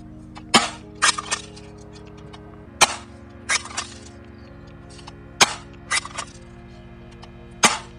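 Spring-powered pump-action airsoft shotgun (Azzuri Remington type) firing four times, each sharp crack about two and a half seconds apart and followed by a quick run of clacks as the pump is worked. Background music plays underneath.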